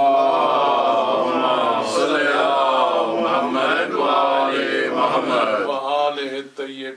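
Many voices chanting together in unison, a congregational devotional recitation, fading out about six seconds in.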